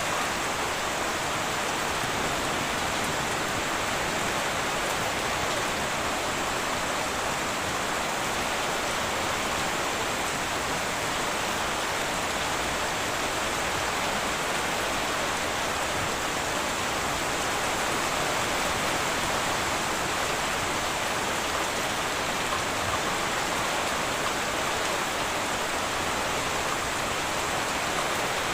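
Heavy rain falling steadily on a tin roof, an even hiss with no breaks and no thunder.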